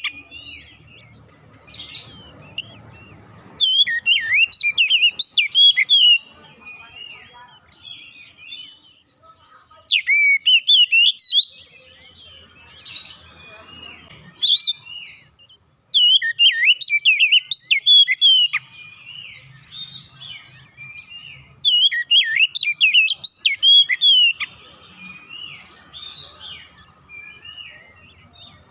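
Oriental magpie-robin singing: loud bursts of rapid, varied whistled phrases lasting two to three seconds each, coming about every six seconds, with softer twittering in between.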